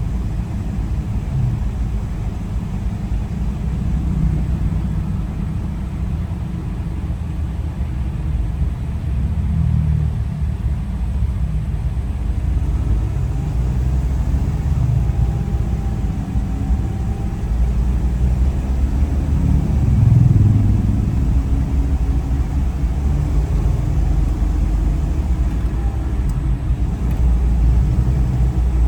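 Steady low rumble of a road vehicle in motion, swelling slightly about twenty seconds in.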